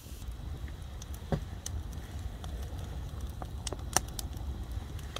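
Wood campfire crackling, with scattered sharp pops over a low steady rumble.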